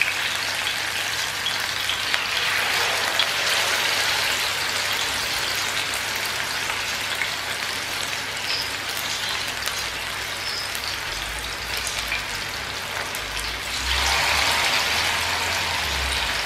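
Masala-coated fish pieces frying in hot oil in a shallow non-stick pan, a steady crackling sizzle. It swells louder twice as two more pieces are laid into the oil.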